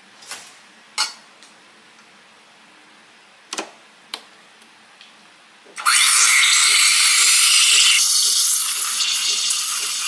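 A few light clinks and knocks as the milk pitcher is handled. About six seconds in, the SMEG EGF03's steam wand opens with a loud, steady hiss, steaming milk in the pitcher.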